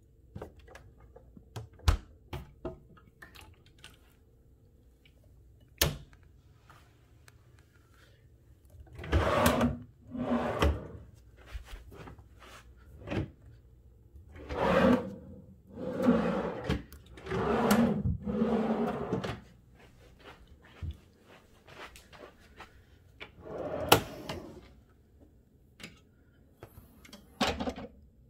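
Drawers and a mini-fridge door being opened and shut: several sharp clicks and knocks, and longer sliding, rumbling sounds of drawers running in and out.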